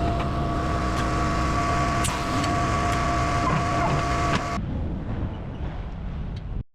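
A heavy truck's engine runs under a loud, steady hiss with a high whine from its working equipment. The hiss and whine cut off about four and a half seconds in, leaving the engine running, with a few light clicks along the way.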